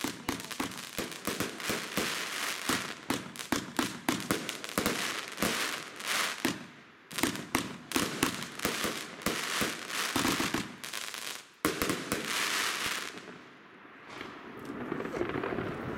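A fireworks cakebox firing: a rapid volley of shots and bursting stars with dense crackling. It runs for about thirteen seconds, then dies away.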